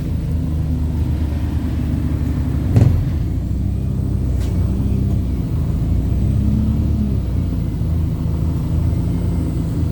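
Wright StreetLite single-decker bus under way, its diesel engine and running gear giving a steady low drone, with one sharp knock about three seconds in.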